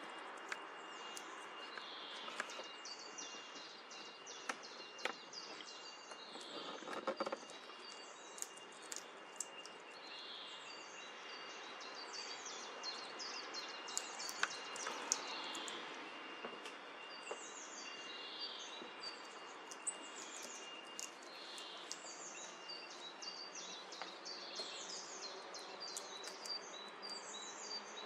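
Small birds chirping over and over in quick downward-sweeping notes, with scattered sharp taps of a great spotted woodpecker pecking at a tree trunk. A cluster of taps comes about seven seconds in and more in the middle.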